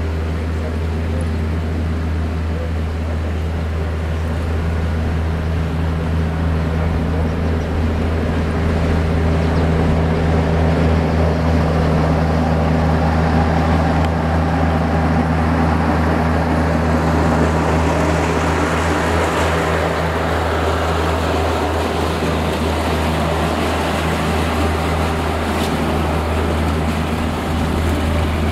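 Steady low engine-like hum, with a louder rushing noise that swells through the middle and fades again.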